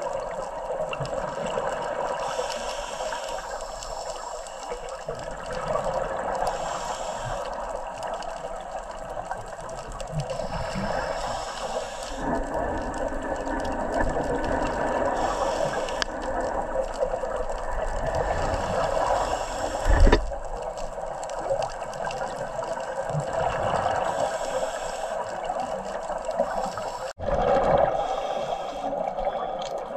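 Underwater noise picked up by a diver's camera: a steady watery hiss and bubbling from scuba breathing. There is a single dull thud about two-thirds of the way through.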